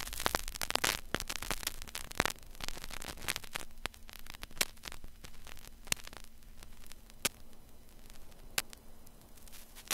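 Crackling static with sharp clicks, dense at first and then thinning out to a single click about every second and a half, over a faint steady hum.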